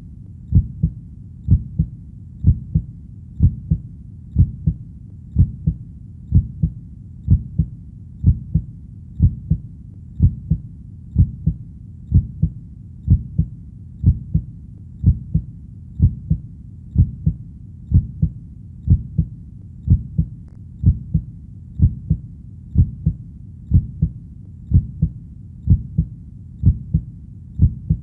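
Human heartbeat, a steady low double thump (lub-dub) repeating at about one beat a second.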